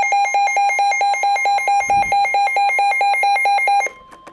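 Weather radio alert alarm beeping rapidly, about six buzzy beeps a second, over a steady warning tone, signalling a severe thunderstorm warning. The beeping stops abruptly about four seconds in, leaving the steady tone alone.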